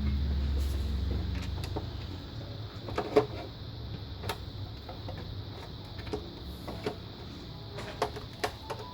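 Scattered sharp clicks and taps of computer parts being handled during disassembly, with a low hum that fades away over the first couple of seconds.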